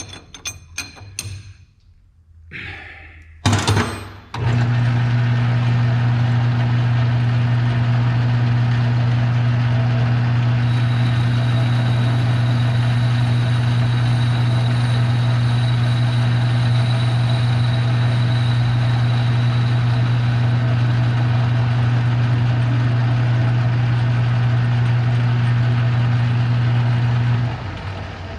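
Metal lathe's electric motor starts a few seconds in and runs with a loud, steady hum while the front of the knob is faced, a thin high whine joining partway through, then shuts off near the end. A few clicks and a short clatter come before it starts.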